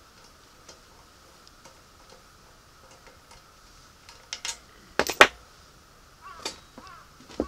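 Metal clinks and clicks as gloved hands handle a small generator engine's crankcase cover and crankshaft end. Light scattered ticks at first, then a quick run of sharp clinks about four to five seconds in, the loudest just after five seconds, and a few more scraping clicks near the end.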